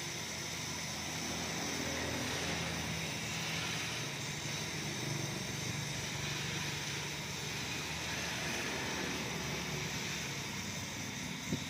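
A high-pressure washer running steadily: its pump motor hums under the hiss of the water jet spraying against a van's underbody.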